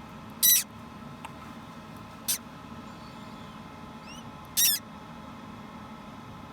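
Hatching parrot chick giving three short, high-pitched squeaks, about two seconds apart.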